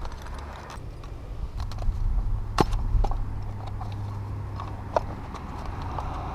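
Handling noise: a few sharp clicks and taps from hands working a small black case, over a steady low rumble.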